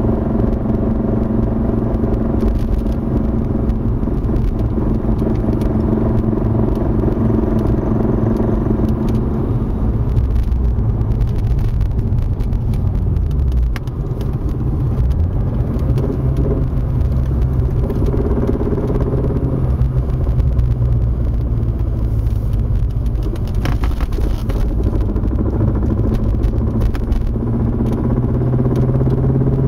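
BMW E36 325 engine and drivetrain running under way, a steady low hum whose pitch drops with a brief dip in loudness about halfway through, then climbs again near the end. It is recorded for a suspect noise that the owner at first takes to come from the gearbox.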